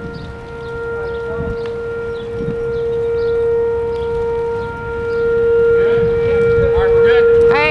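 Outdoor tornado warning siren sounding a steady held tone. A short series of quick rising chirps comes in near the end.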